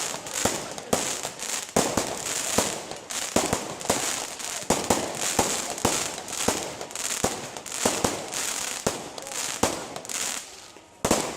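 Aerial fireworks going off in quick succession: a dense run of sharp bangs and booms, several a second, over continuous crackling. They ease off near the end, then one loud bang follows.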